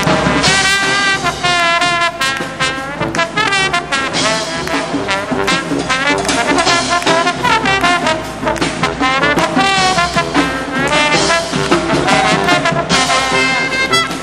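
Marching brass band playing live: trombones and trumpets carry the tune over sousaphones, with snare drums and cymbals keeping the beat.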